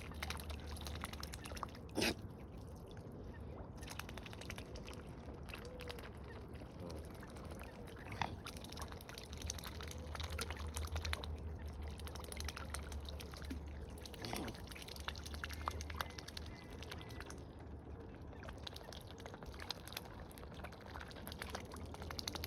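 Water splashing and dripping around waterfowl, with many small clicks, sharper knocks about 2, 8 and 14 seconds in, and a few faint waterfowl calls.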